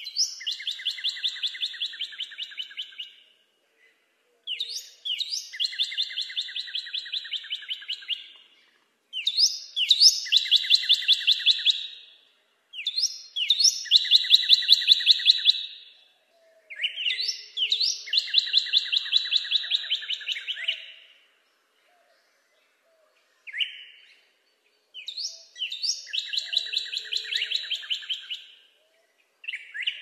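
Northern cardinal singing its repeated song: about seven phrases with short pauses between them, each opening with a couple of quick slurred whistles and running into a fast string of repeated notes lasting three to four seconds.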